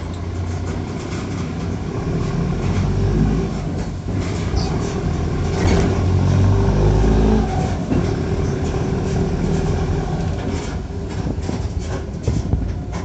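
Mercedes-Benz OF-1418 bus diesel engine and exhaust running under load. The deep note strengthens, then drops off sharply about seven and a half seconds in. Short clicks and rattles come through, more of them in the second half.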